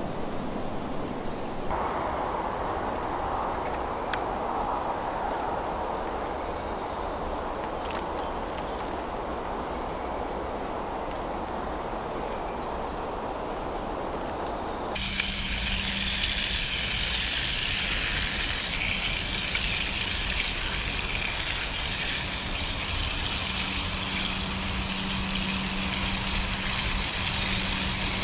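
A steady rushing hiss with faint high bird chirps over it, then about halfway through it switches sharply to the brighter, crackling sizzle of bacon frying in a small pan on a camping stove, under a low steady hum.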